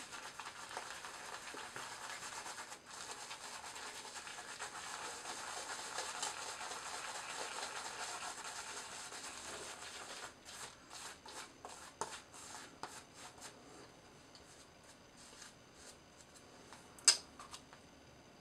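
Shaving brush swirling lather over the face and neck, a faint, steady soft scrubbing for about ten seconds, then a few short separate strokes that fade out. A single sharp click near the end.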